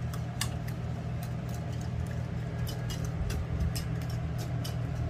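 Wire whisk beating egg batter in a bowl: irregular light clicks and scrapes of the wires against the bowl, over a steady low hum.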